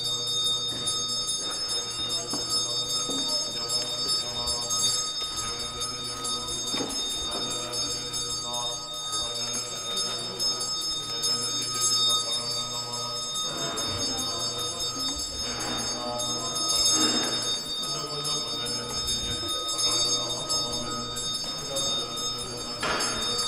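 Buddhist lamas chanting a prayer service in a low, droning voice, with a steady high ringing above the chant. A few short rushes of noise come in the second half.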